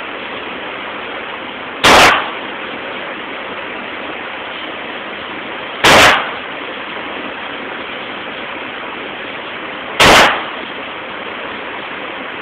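Three handgun shots about four seconds apart, each a sharp crack with a short echo off the indoor range, over a steady hiss.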